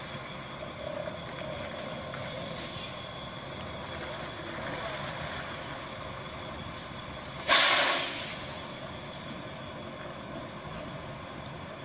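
Semi-truck running steadily in a truck yard, with one sudden loud hiss of released air-brake air about seven and a half seconds in that fades over about a second.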